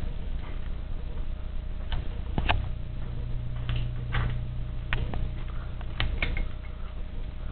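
Handling noise from a handheld camera: irregular clicks and knocks, about ten in all, over a steady low hum. A second, louder low hum comes in about two and a half seconds in and stops near six seconds.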